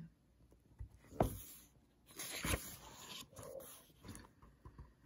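A book page being turned: a soft tap, then a short paper rustle with a sharp click as the page turns over.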